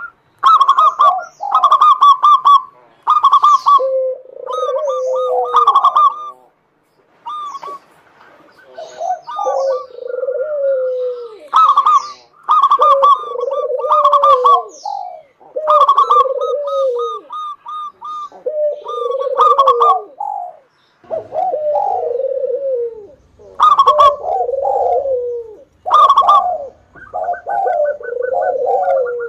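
Zebra dove (perkutut) singing, phrase after phrase about every two seconds: each phrase is a quick run of higher staccato notes followed by lower, rolling coos.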